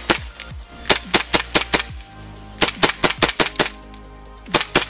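WE M9A1 gas blowback airsoft pistol firing in rapid strings of sharp shots: a pair at the start, then two strings of about seven or eight shots each, a second or so apart, and a few more near the end.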